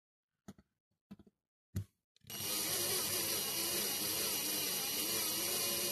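A few light knocks, then about two seconds in a cordless drill starts and runs steadily at slow speed, its bit cutting into the rivet post that holds a die-cast toy car's base.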